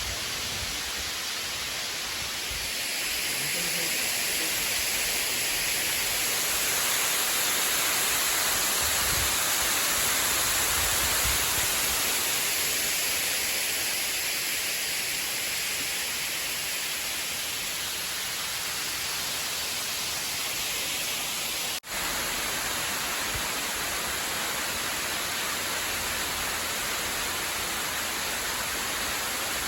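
Steady hiss of rushing water from a stream or waterfall, swelling a little and then easing, with a brief dropout about two-thirds of the way through.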